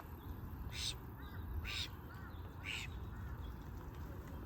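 A bird gives a harsh call about once a second, four times, with faint small chirps in between, over a steady low background rumble.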